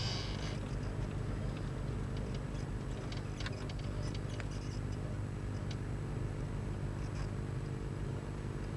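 Car engine and road noise heard from inside the cabin, a steady low drone with scattered light ticks and rattles. A brief hiss sounds right at the start.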